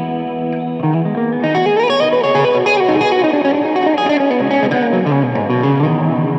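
Solo electric guitar on a Les Paul-style single-cutaway body, played through an amp: a chord rings, then about a second in a fast run of single notes climbs and winds back down to a low note near the end, where notes are left ringing.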